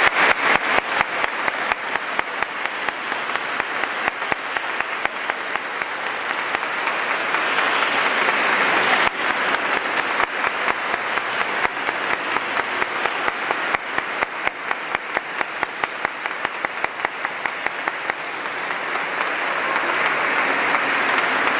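Congregation applauding, a dense and steady clapping of many hands.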